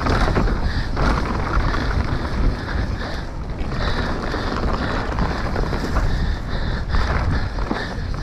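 Wind buffeting the microphone of a mountain bike descending fast on a dirt trail, over a constant rumbling rush of tyres and frame.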